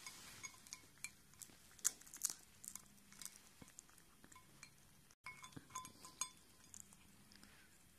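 Siamese cat feeding from a glass bowl: faint, irregular small clinks and taps against the glass, with soft chewing.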